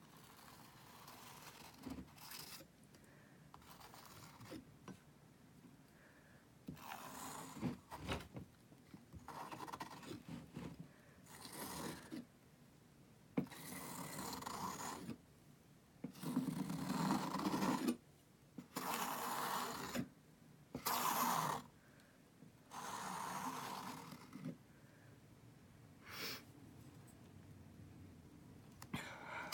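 Metal palette knife scraping and spreading thick paint across a stretched canvas, in about a dozen separate strokes of a second or two each with short pauses between them.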